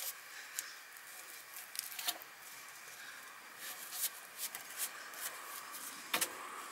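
Wooden poles being lifted out of a log bed frame and handled with gloved hands: light rustling with scattered wooden knocks, and a sharper double knock about six seconds in.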